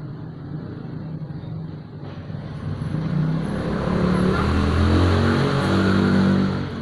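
A motor vehicle's engine running close by, growing louder over a few seconds and then dropping away near the end.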